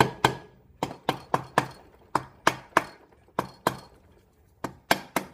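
Light hammer taps on metal on the Triumph twin's top end, about fourteen sharp, ringing strikes in quick runs of two to four, tapping a stuck part to free it during teardown.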